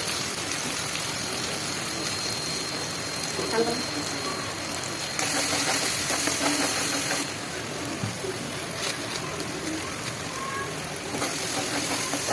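Chicken sizzling as it fries in a hot pan: a steady hiss that swells louder for a couple of seconds midway and again near the end.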